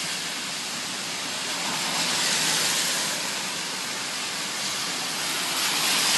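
Steady rushing hiss of torrential rain and tyres on the wet road, heard from a moving car, swelling a little about two seconds in.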